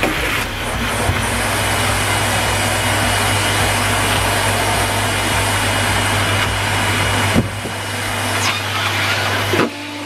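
Numatic Henry canister vacuum cleaner running steadily, its floor tool sucking over carpet with a loud, even rush of air, and a sharp knock about seven seconds in.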